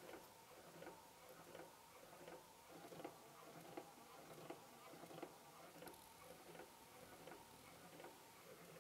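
Clockwork mechanism of an automaton ticking faintly and evenly, about two to three ticks a second.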